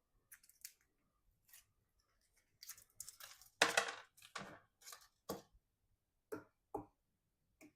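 Fever-reducing tablets being snapped into pieces and handled: a string of irregular sharp clicks and crunches, the loudest about three and a half seconds in.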